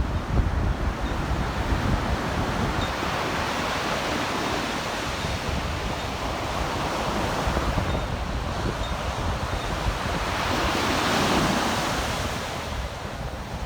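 Sea surf washing onto the beach, with wind buffeting the microphone; one wave surges louder about eleven seconds in and then draws back.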